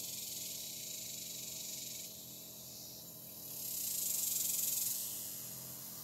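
Chorus of cicadas buzzing in a dense, high hiss that swells louder about three and a half seconds in, peaks, and eases off again near the end.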